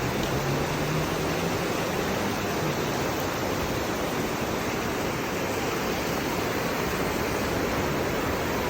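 Steady rushing of water, an even noise with no break, with a faint low hum in the first few seconds.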